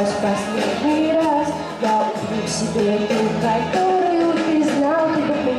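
Pop song: a female vocalist singing into a microphone over a backing track.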